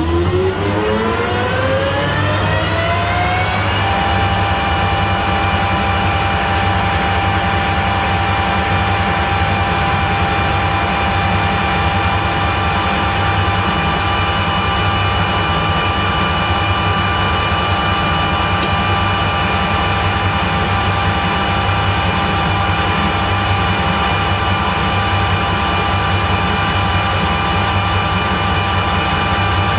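Harrison 12-inch swing lathe spinning up, its whine rising in pitch over the first few seconds. It then runs steadily at speed while the tool faces the end of a steel bar.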